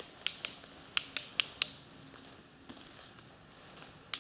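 A quick run of six sharp, dry clicks in the first two seconds, a few tenths of a second apart, then only faint background.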